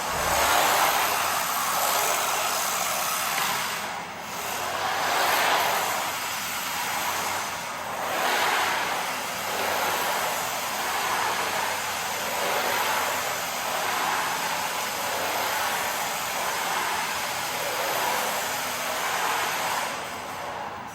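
Mini 1:28-scale brushed electric drift RC car running on its track, the whir of its motor and the rush of its tyres swelling and fading every second or two as it is throttled through drifts.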